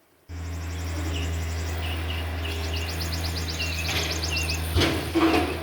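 Takeuchi TB153 compact excavator's diesel engine running with a steady low hum, with a louder burst of noise about five seconds in. Birds chirp and insects trill over it.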